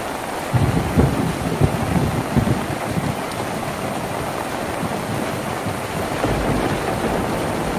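Steady rain on a rustic tin roof. A loud, irregular low rumble starts about half a second in and lasts until around three seconds, and a weaker low swell comes near the end.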